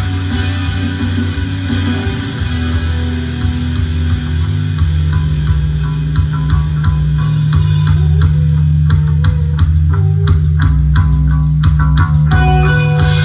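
Karaoke backing track with electric guitar, bass and drums playing an instrumental passage, the drums coming in steadily about five seconds in.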